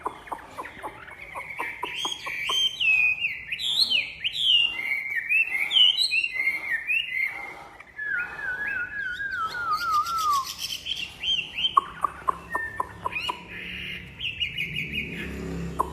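Chinese hwamei (wambi) singing a loud, varied song of whistled notes that swoop up and down. About halfway through comes a run of quick notes stepping downward, with rapid sharp notes mixed in throughout.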